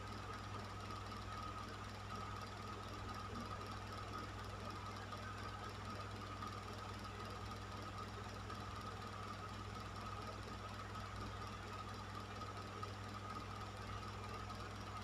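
Electric fan running steadily: a low motor hum with a thin, constant whine over an even rush of air.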